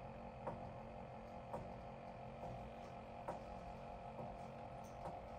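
Stepper motors driving the joints of a 3D-printed, belt-driven robot arm, giving a faint steady whine that slowly rises in pitch, with light clicks about once a second.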